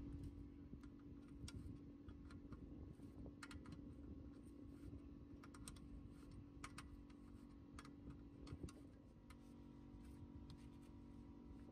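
Faint, irregular small clicks and taps of a metal hand tool working the gearbox drain plug as it is refitted, over a faint steady low hum.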